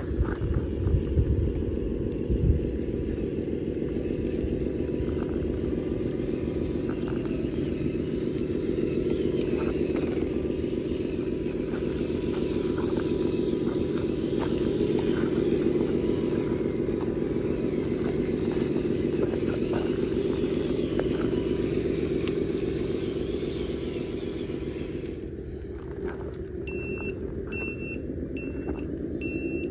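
Engine sound of a Tamiya 1/14 Mercedes RC dump truck, running steadily as the loaded truck drives, with a few thumps in the first couple of seconds. Near the end a reversing beeper starts, giving a steady series of short high beeps.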